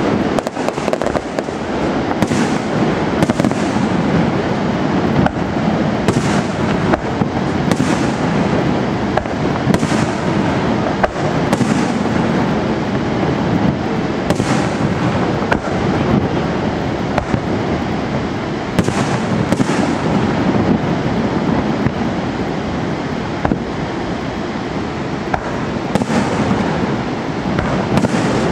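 A fireworks display: a continuous barrage of overlapping bangs and crackles with no pause, dozens of sharp reports over a dense rumbling background.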